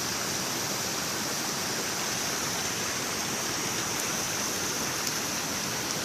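Steady rushing of a river running over small waterfalls.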